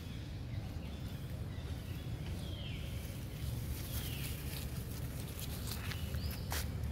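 Long-tailed macaques scuffling and moving through grass, with a few short high squeaks that fall in pitch, and a couple of sharp clicks near the end, over a steady low rumble.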